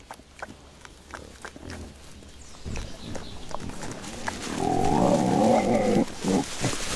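Corsican pigs rooting in dry leaves and chestnut husks, with crackling and crunching in the litter. About four and a half seconds in, a pig gives one long, loud grunting call lasting nearly two seconds.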